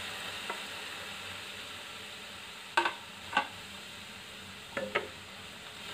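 Raw, just-washed chicken liver pieces sizzling in a hot, dry non-stick kadhai with no oil yet: the water from the liver hisses steadily and slowly dies down. A few short, sharp clicks come around the middle and again near the end.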